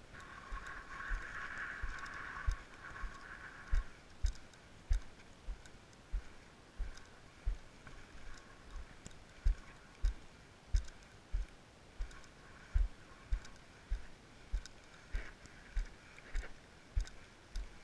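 Walking footsteps carried through a windsurf rig, heard as dull low thumps about every 0.6 seconds as the rig jolts with each step. A faint hiss with a thin whistle-like tone runs through the first four seconds.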